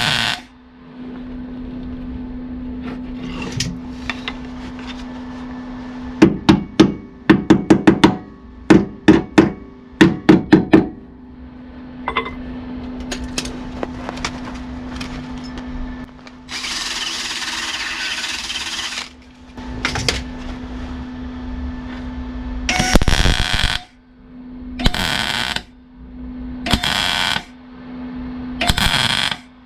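Welding and metalwork on car body panels over a steady hum. Rapid runs of sharp metal knocks come first. Then there are a few seconds of continuous harsh crackle, followed by a series of short welding bursts, each about a second long and about two seconds apart, as a repair patch is stitch-welded in.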